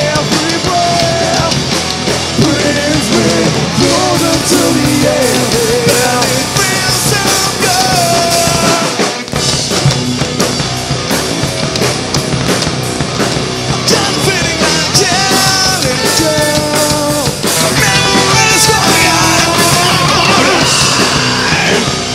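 Post-hardcore rock band playing live: distorted electric guitars, bass and drum kit with a singer's vocal line. The band briefly breaks off about nine seconds in, then comes straight back in.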